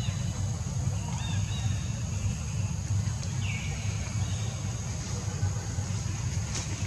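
Several short, high chirping animal calls, one sliding downward about three and a half seconds in, over a steady low rumble and a faint steady high hiss.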